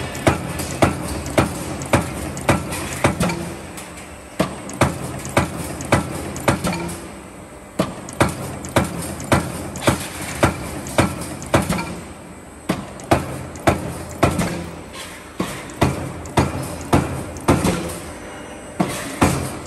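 Mechanical punch press stamping a perforated steel ceiling carrier strip in its die: a sharp metal clank about twice a second over a steady machine hum, with a few short gaps in the strokes.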